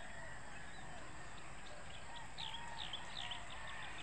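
Rural outdoor ambience: a steady background hiss, with a quick run of short, high, falling bird chirps from about two to three seconds in and fainter, lower bird calls around them.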